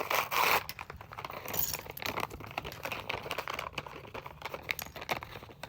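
Plastic bag of Lego pieces being torn open and crinkled, with the small plastic bricks clicking and clinking against each other inside; the loudest crinkle comes in the first half second.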